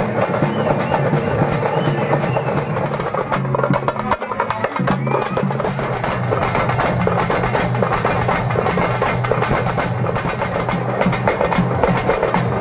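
Parai frame drums beaten fast with sticks in a dense, driving rhythm that does not let up. It is the beat that accompanies a trance possession dance (saami aattam).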